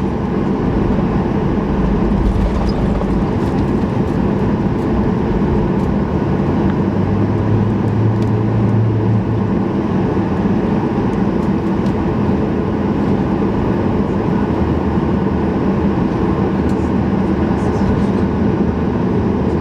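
Steady engine and air noise heard inside the cabin of a Boeing 737-800 with its CFM56-7B turbofan engines running, plus a low hum from about seven to nine seconds in.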